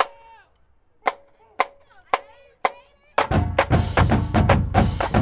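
A marching drumline counting off with sharp stick clicks, four evenly spaced about half a second apart, then the full battery of snares, quad toms, bass drums and cymbals coming in together about three seconds in.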